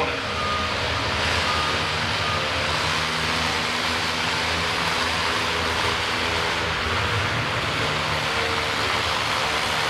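Farmall tractor's engine running steadily under load as it pulls a weight-transfer sled across the dirt.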